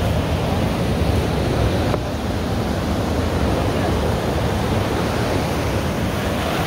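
Steady rush of sea water and wind, with a deep wind rumble on the microphone; there are no distinct events or changes.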